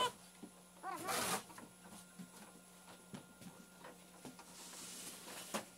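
Faint scattered clicks and taps of hand work on metal parts inside a wood lathe's headstock, over a steady low hum. A short rasping noise comes about a second in.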